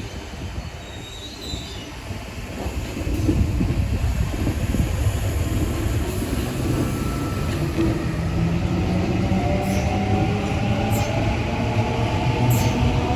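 A train running through the station, its rumble growing louder about three seconds in, with a whine that slowly rises in pitch in the last few seconds as it picks up speed.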